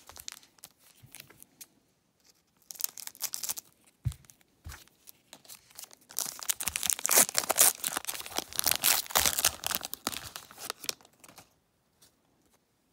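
Foil wrapper of a trading-card pack crinkling and tearing open. A short crackle comes about three seconds in, then a louder, longer stretch of tearing and crinkling from about six to eleven seconds.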